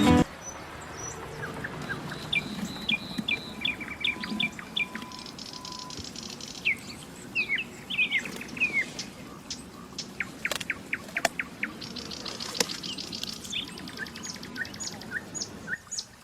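Songbirds chirping and calling: many short, quick chirps and fast trills, repeated throughout.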